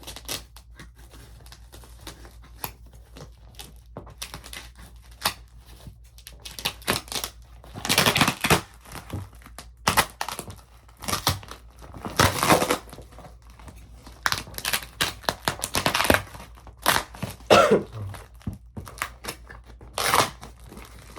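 Scissors cutting and hands tearing at a parcel's packing wrap: irregular crinkling, snipping and tearing, with several louder rips every few seconds. A faint low hum runs underneath.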